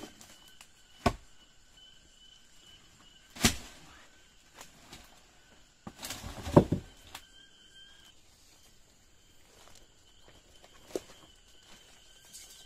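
A few scattered thumps and knocks, the loudest a short cluster about six to seven seconds in, over a faint steady high-pitched drone.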